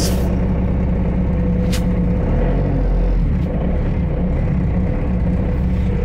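Bobcat S250 skid steer's diesel engine running, still warming after a cold start, heard from inside the cab as a steady low rumble that shifts a little past halfway through. Two short clicks cut through it, one right at the start and one sharper about two seconds in.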